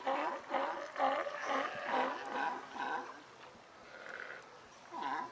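Galapagos sea lions barking in quick repeated calls, about two or three a second, as bulls chase and fight a rival over territory. The barking eases after about three seconds and starts again near the end.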